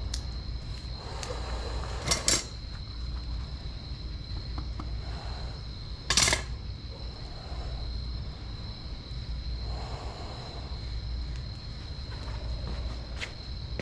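A few sharp metallic clinks of small metal pieces being handled, a double one about two seconds in and a louder single one about six seconds in, over a steady low hum.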